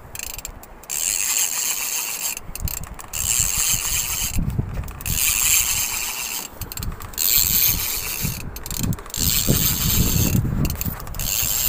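Fishing reel being cranked to bring in line, its gears making a fast ratcheting whir that stops briefly about every two seconds, over a low rumble.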